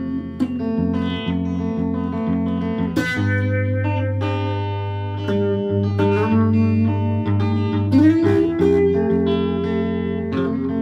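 Electric guitar playing slow, ringing notes and chords over a held low note, with a note bent upward about eight seconds in.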